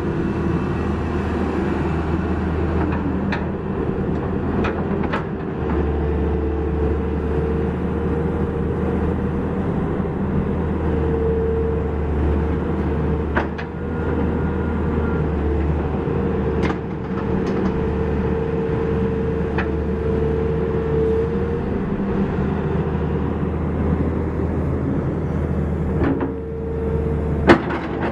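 Caterpillar 321C excavator running: a steady diesel engine hum under a hydraulic whine that comes and goes. About nine sharp knocks are scattered through it, the loudest near the end.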